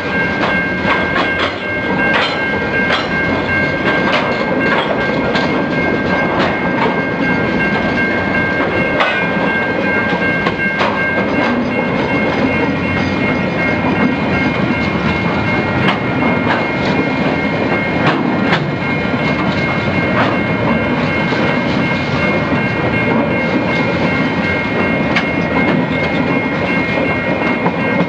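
KiwiRail freight wagons rolling past close by, with steady rumbling wheel-on-rail noise and a regular clickety-clack of wheels over rail joints. Steady high-pitched squealing tones sit over it, one of which drops out about halfway through.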